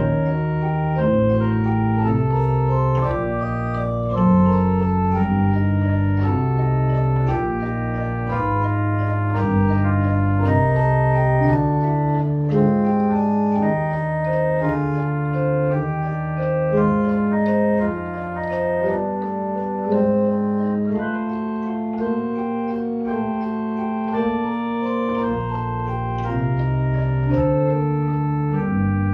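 Pipe organ playing a chorale prelude: sustained chords with a moving bass line, most notes held about a second each. The deepest bass notes drop out for a stretch in the middle.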